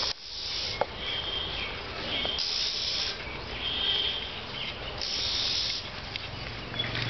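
Outdoor ambience: short bursts of high hissing recur every second or two, with brief high chirping tones between them.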